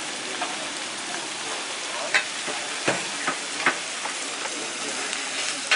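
Food frying with a steady sizzle, broken by a few sharp clicks and knocks, loudest at the end.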